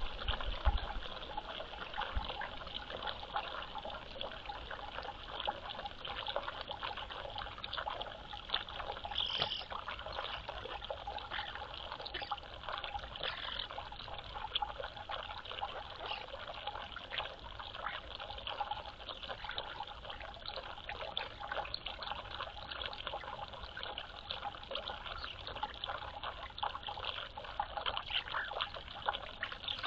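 Water trickling and splashing: a continuous patter of small drips and splashes.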